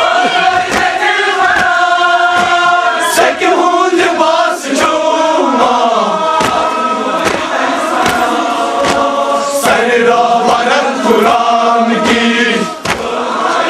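A large crowd of men chanting a Muharram mourning lament (noha) together. Sharp slaps of hands beating chests in matam keep time about every two-thirds of a second.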